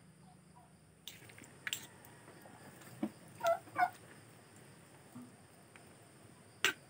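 A metal fork clicking against a plate as it stirs chicken sisig, with two short squeaks about halfway through.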